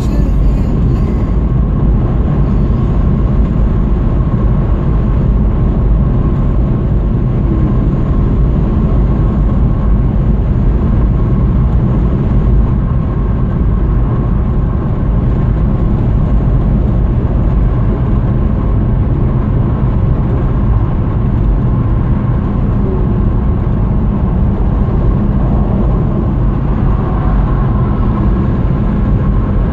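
Steady tyre and engine noise inside a car's cabin while it drives along a motorway. The noise is even and heaviest in the low end, with a faint steady hum above it.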